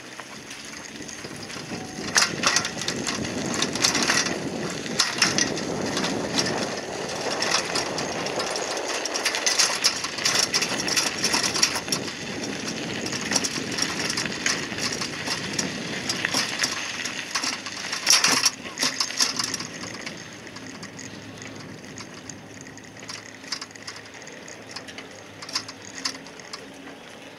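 Bicycle tyres crunching over a gravel and sand path, with many small crackles and clicks. About two-thirds of the way through the crunching stops and the ride goes on more quietly over smooth pavement.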